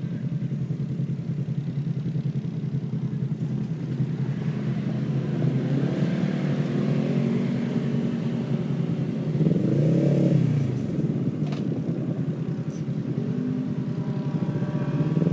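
Engines of non-turbo off-road race vehicles running steadily on the course, with engines revving up and down. One swells and falls in pitch as it passes about two-thirds of the way through.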